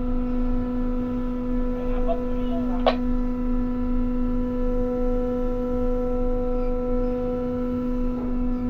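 Steady electric hum of an E-Crane's electric motor and hydraulic pump running during a slow lift, one unchanging pitched drone with overtones. A single sharp click about three seconds in.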